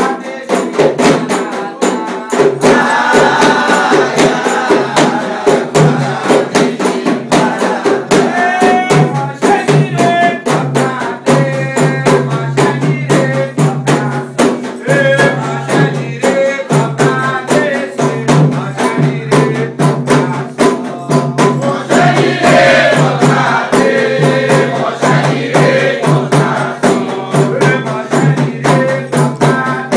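Candomblé ceremonial music: singing over fast, steady percussion strikes, with a low sustained tone underneath.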